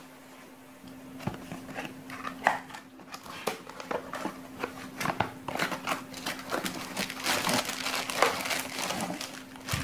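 Cardboard product box being handled and opened by hand: short, irregular rustles, scrapes and clicks of cardboard and packaging, coming thicker from about four seconds in. A faint steady hum runs underneath.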